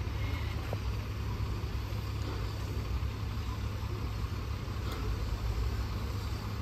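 Steady low rumble of a railway station with locomotives standing at the platform, with a faint hiss above it and no distinct events.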